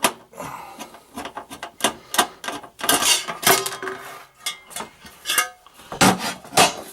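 Irregular clicks, scrapes and knocks as the metal access cover is worked off an electric water heater by hand, with a brief metallic ring midway.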